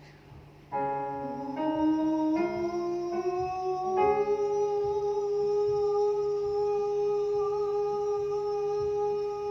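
A singer's voice on a vocal exercise: a sung vowel steps up in pitch a few times, then holds one long, steady note until it cuts off just before the end. The exercise is to sustain the note with a relaxed neck so the breath lasts.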